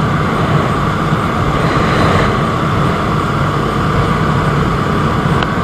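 Steady riding noise of a KTM motorcycle on the move: engine running with wind and road noise on the rider's microphone.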